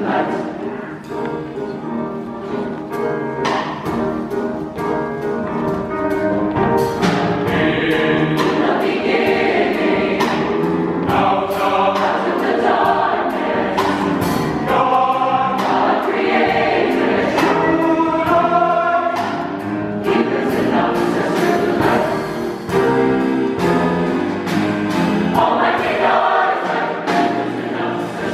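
Large mixed high-school choir singing a gospel-style choral piece in full harmony, with instrumental accompaniment marking the beat.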